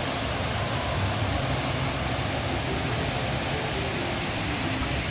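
Steady rush of water falling over a waterfall's tiers, an even hiss with no breaks.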